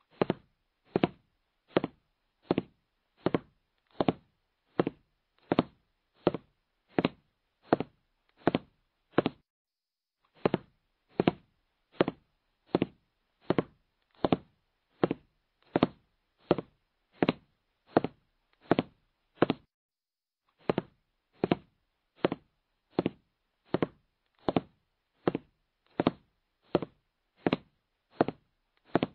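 Countdown-timer sound effect: a steady knocking tick, about four every three seconds, in three runs broken by a short pause about a third and two-thirds of the way through.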